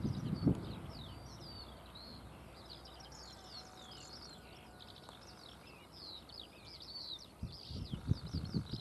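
Several birds chirping and twittering in a steady run of short, high calls. Low gusts of wind buffet the microphone briefly just after the start and again near the end.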